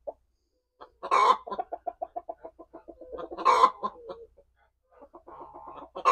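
Chicken cackling: three loud squawks about two and a half seconds apart, each among a run of quick, short clucks.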